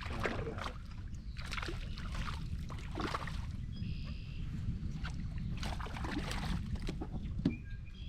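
Steady low rumble of wind and water around a small fishing boat, with scattered short knocks and splashes. A brief high whistle sounds about four seconds in.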